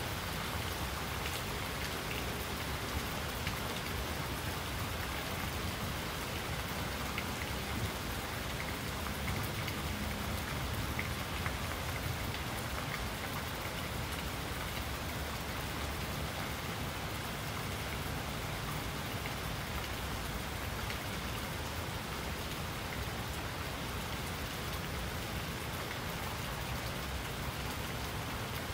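Steady rain falling: an even hiss with faint, scattered drop ticks that holds unbroken throughout.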